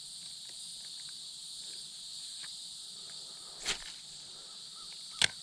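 Steady, high-pitched chorus of insects trilling, with two brief sharp clicks, one about three and a half seconds in and a louder one about five seconds in.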